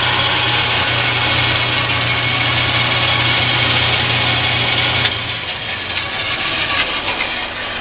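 Jet 14-inch variable-speed vertical band saw running, its motor and pulley drive making a steady hum with an even whir over it. The hum stops about five seconds in, and a softer whir carries on.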